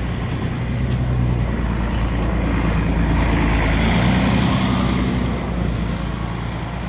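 Articulated city bus driving past, its engine and tyre noise growing louder to a peak about three to four seconds in, then fading.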